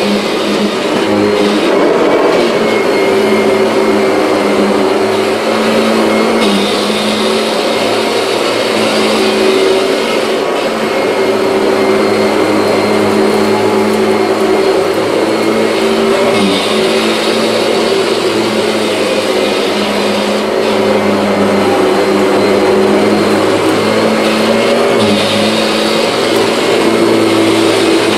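Kirby G6 upright vacuum cleaner running steadily at full power over a rug, a constant motor hum under a rush of air. Its tone shifts slightly every few seconds.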